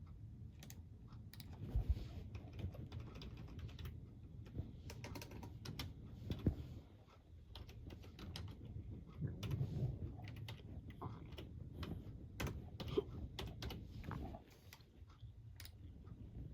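A crunchy snack being chewed, heard as scattered sharp crackles and clicks, over a continuous low stomach rumble with a few deeper gurgling thuds.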